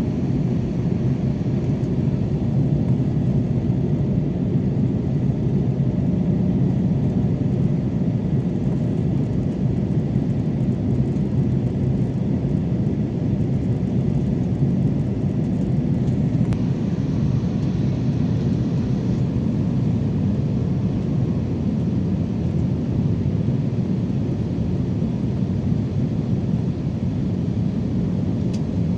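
Steady low rumble of an Airbus A320-216 with CFM56-5B engines, heard inside the cabin, unchanging throughout with faint steady tones above the rumble.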